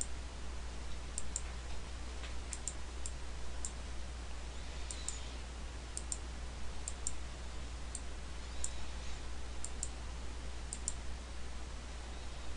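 Computer mouse buttons clicking at irregular intervals, many in quick pairs, over a steady low hum.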